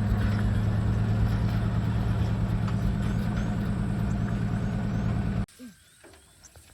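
Vehicle engine running steadily with a deep even hum, cutting off abruptly about five and a half seconds in and leaving near quiet.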